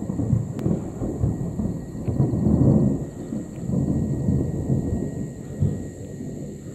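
Thunder from an approaching storm rumbling in a long low roll that builds to its loudest about halfway through and eases off near the end.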